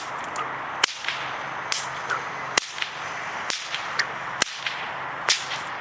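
Bullwhip cracked over and over in a flowing routine: six sharp cracks about a second apart, with softer snaps between them.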